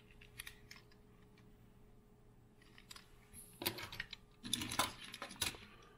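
Small die-cast metal toy cars clicking and clinking against each other as they are handled in a pile, a cluster of light clicks starting about halfway through and lasting about two seconds.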